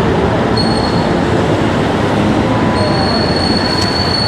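Loud city din with a thin, high, steady squeal of train wheels on rail that sounds briefly under a second in and comes back about three seconds in, holding on.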